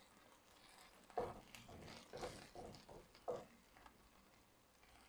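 Wooden spoon stirring chopped onions in a nonstick frying pan: a few faint, short scraping strokes, the clearest about a second in and just past three seconds.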